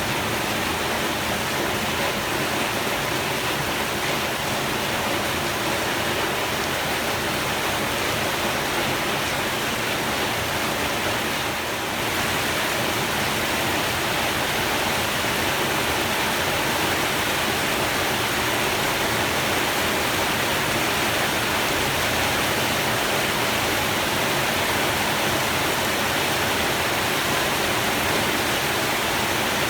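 Heavy rain pouring down, a steady even hiss, with a slight brief lull about twelve seconds in.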